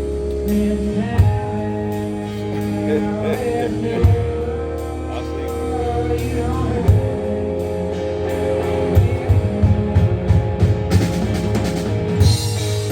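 A song with guitar, drums and a singing voice, which cuts off suddenly at the end.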